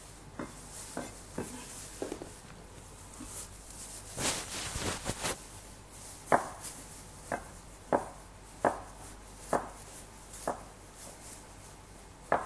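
Kitchen knife cutting soft steamed potato into cubes on a wooden cutting board, each stroke ending in a sharp tap on the board. The taps are faint at first, with a short noisy stretch around four seconds in, then come louder at roughly one a second.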